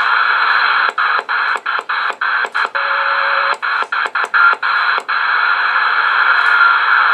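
Cobra 140 GTL CB radio receiving steady band static through its speaker. The static cuts out in about a dozen quick gaps between one and five seconds in as the channel selector is clicked up through the channels, each channel step briefly muting the receiver.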